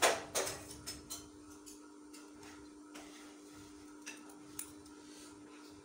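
Metal scissors snipping through folded paper: a quick run of sharp snips at the start, then single snips every half-second or so, over a steady low hum.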